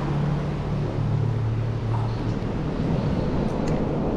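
A low, steady motor hum that fades out about two seconds in, over a constant rushing noise, with a few faint clicks near the end.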